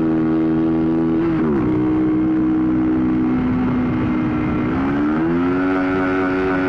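2007 Honda CBR125's single-cylinder engine running under way. Its pitch dips briefly and recovers about a second and a half in, then climbs about five seconds in and stays higher.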